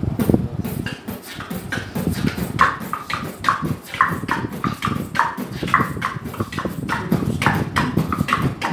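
Beatboxers performing a combo routine together: a fast, steady rhythm of mouth-made drum sounds with sharp tongue clicks and short popping tones.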